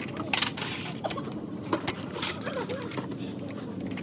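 Motorcycle engine running with a steady low hum and an irregular, sharp mechanical ticking and clatter over it: the abnormal engine noise being shown.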